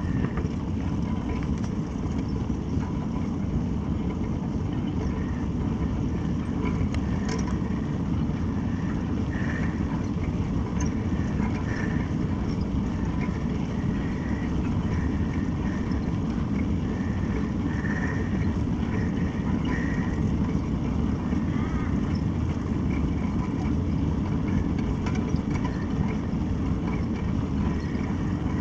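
Steady rush of wind on the microphone and tyre rolling noise from a bicycle riding along an asphalt road, with a few faint high chirps in the middle.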